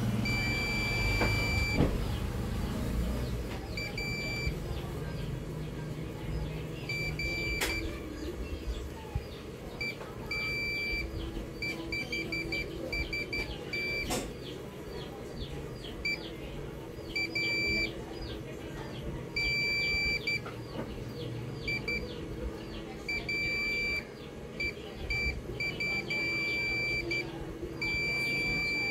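Digital multimeter in continuity mode beeping at one steady high pitch, many times over in beeps of varying length, as the probe is tapped across capacitors on a laptop motherboard. Each beep marks a path to ground: the main 19-volt rail is shorted.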